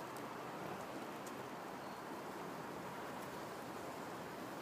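Works toilet bowl cleaner pouring from its jug into a plastic soda bottle packed with aluminum foil: a steady trickling splash of liquid.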